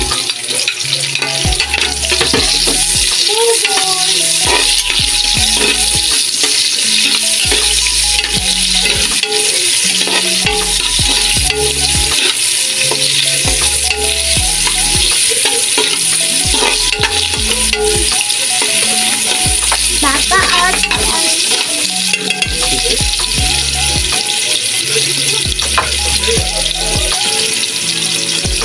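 Garlic and sliced red onions sizzling in hot oil in a metal pot, a steady hiss throughout, with a utensil stirring them and clicking and scraping against the pot.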